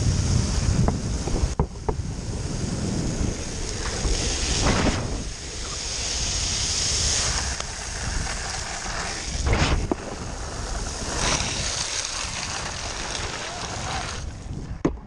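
Steady rush of wind on the microphone mixed with the hiss of longboard urethane wheels rolling fast through water on wet asphalt, broken by a few short knocks.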